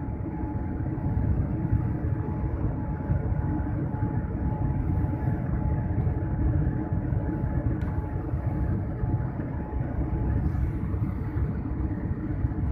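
Jet airliner cabin noise during the descent: a steady low rumble of engines and airflow, with a thin steady tone above it.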